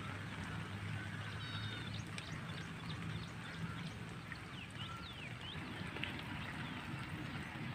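Rural outdoor ambience: birds chirping in short high calls over a steady low hum and a soft even hiss.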